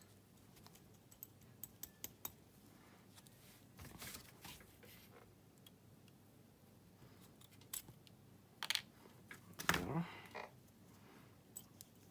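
Small metal clicks and scrapes from needle-nose pliers and tiny parts worked on a pocket bike's carburetor, as the float pin and float needle are taken out. There is a louder scrape about four seconds in and a short clatter of handling around two-thirds of the way through.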